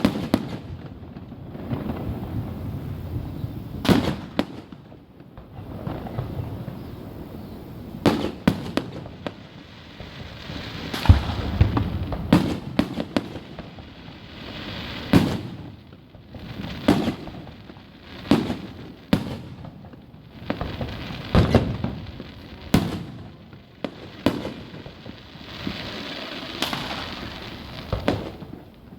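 Aerial fireworks bursting, sharp booms every second or two, the loudest about eleven seconds in, with rumbling echoes and crackle between them.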